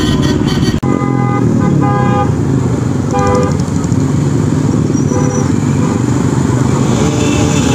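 Many motorcycle engines running together in a moving pack, with horns honking several times, the longest honk about a second in.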